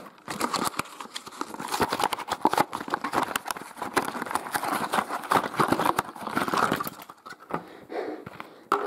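Clear plastic blister packaging being crinkled and pried open by hand: a dense run of crackles and snaps that thins out after about seven seconds.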